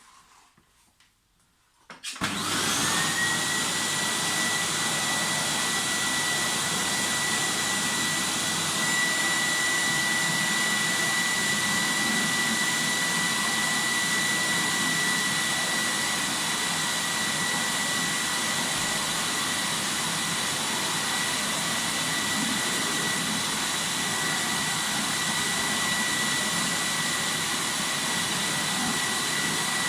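Fagor Electronic 2.350 vacuum cleaner switched on about two seconds in, its motor spinning up within a second, then running steadily with a high whine.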